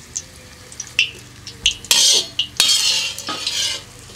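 Metal utensil clinking and scraping against a kazan as fried onion skins are lifted out of hot lamb fat, with the fat frying underneath. A few sharp clicks come about a second in, then two longer scraping strokes.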